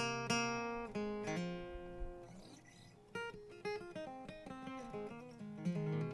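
Acoustic guitar playing an instrumental intro. A strummed chord rings out and fades over about three seconds, then single picked notes follow, and fuller strumming comes back near the end.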